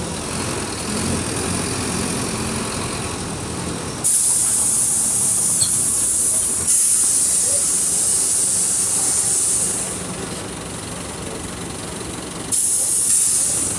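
Mercedes-Benz OF 1722M bus diesel engine running, with a loud hiss of air that starts suddenly about four seconds in. The hiss grows louder a few seconds later, falls away near ten seconds and comes back suddenly near the end.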